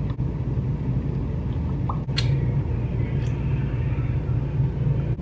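Steady low hum of room tone, with a single sharp click about two seconds in.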